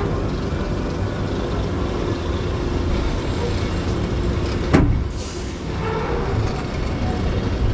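D. H. Morgan steel roller coaster train rolling slowly over the final stretch of track: a steady low rumble of the wheels on the steel rails, with one sharp clunk nearly five seconds in followed by a brief hiss.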